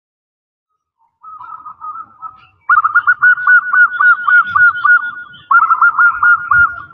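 Female zebra dove (perkutut) calling to males: a soft warbling call about a second in, then a long, fast run of short, clipped cooing notes, and a second, shorter run near the end.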